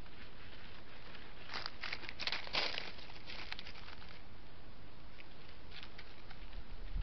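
Dry leaves and twigs crackling and rustling in a dense flurry of small snaps between about one and a half and four seconds in, with a few more near the end, over the steady hiss of a trail camera's microphone.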